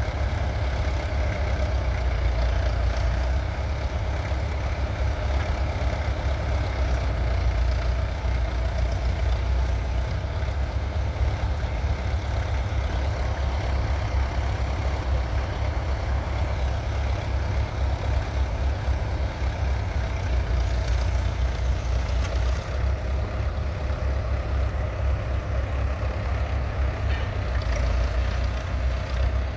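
1967 International Harvester B275's 2.3-litre four-cylinder diesel engine running steadily.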